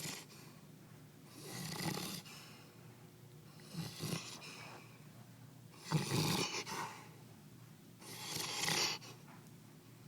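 Sleeping black Labrador snoring: four slow snores about two seconds apart, each a breathy puff as his loose cheeks flap.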